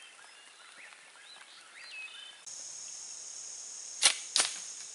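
A homemade Hawaiian sling being shot: two sharp cracks about a third of a second apart as the slingshot bands are let go and the wooden dart flies off. A steady high insect trill runs under them from about halfway in, and there are bird-like chirps before it.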